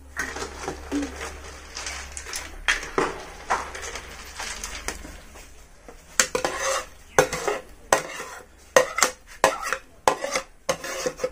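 Metal ladle knocking and scraping against a metal wok and a ceramic bowl as thick curry is ladled from one into the other, in a run of sharp clinks that come thickest in the second half.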